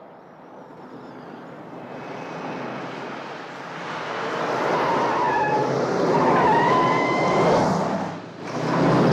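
An ambulance van speeds closer with its engine running hard, growing steadily louder. About five seconds in, its tyres squeal for a couple of seconds as it takes a turn at speed. A brief dip follows, then another loud vehicle rush near the end.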